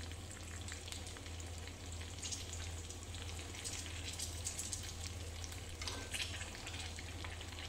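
Potato-stuffed green chillies sizzling and crackling in hot oil in a kadhai, with the scrape and clink of a utensil turning them. A steady low hum runs underneath.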